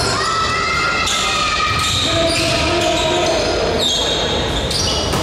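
Basketball being played on an indoor court: a ball bouncing, sneakers squeaking in short high-pitched chirps, and players' voices, with the echo of a large gym.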